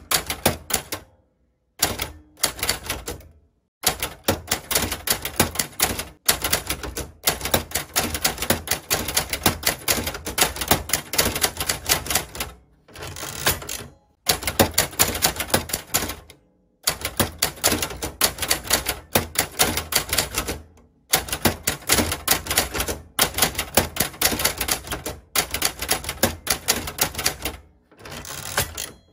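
Manual Hangul typewriter typing, with typebars striking the paper on the platen in quick runs of clicks. The runs last a few seconds each and are broken by short pauses.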